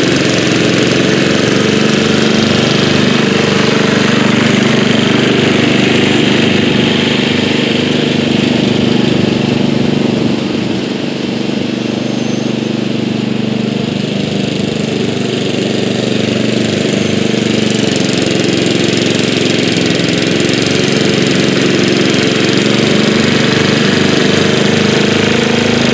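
1983 Bolens G11 lawn tractor's 11 hp Briggs & Stratton engine, modified with raised compression and a different cam, running steadily under load while mowing tall grass. It fades a little around the middle as the tractor drives off and grows louder again as it comes back.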